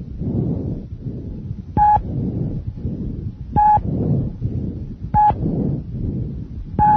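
Bronchovesicular breath sounds from lung auscultation: a soft rushing of air in repeated breaths, with inspiration and expiration about equal in length, a mix of bronchial and vesicular sound. Four short, high beeps cut in over it, about one every second and a half.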